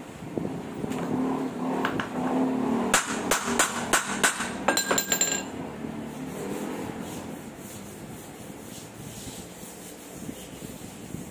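Metal clinks, taps and scraping as a propeller shaft's universal joint is worked on by hand. A quick run of sharp clicks and a brief metallic ring come between about three and five seconds in, then only softer rubbing.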